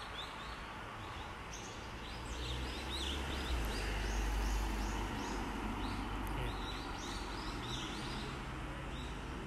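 Small birds chirping in quick runs of short high notes over steady outdoor ambience, with a low rumble that swells in the middle.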